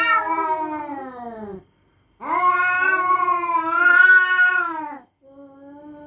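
Cats yowling at each other in a territorial standoff: a long, wavering yowl, a short pause, a second long yowl, then a fainter, lower yowl near the end.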